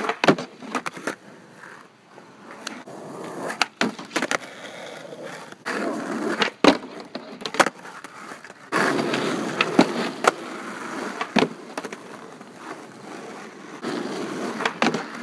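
Skateboard wheels rolling on asphalt, broken again and again by sharp clacks as the board pops, strikes and slides along a low wooden skate bench and lands.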